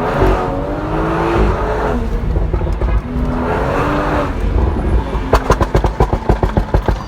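BMW 340i's turbocharged 3.0-litre straight-six on a Stage 2 custom tune, accelerating hard twice, then a rapid string of exhaust pops and crackles on lift-off from about five seconds in: the tune's pops-and-bangs crackle map.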